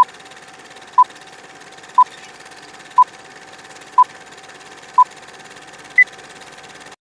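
Film-leader countdown sound effect: a short beep once a second, six times, then a seventh, higher beep. A steady hiss with a faint hum runs under the beeps and cuts off suddenly.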